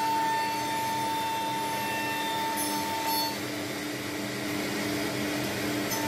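Holztek HT-R4F CNC nesting router machinery running with a steady whirring hum and a high whine. The high whine cuts off about halfway through while the hum carries on.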